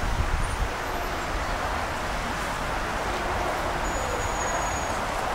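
Steady outdoor city background noise, with wind rumbling on the microphone during the first second or so.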